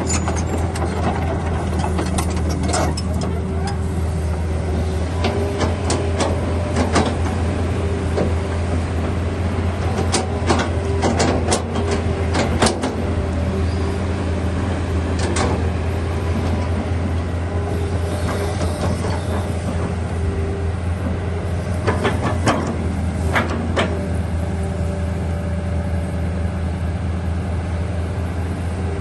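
Hitachi excavator's diesel engine running steadily, with scattered sharp knocks and clanks over it, several in quick succession around the middle and again later on.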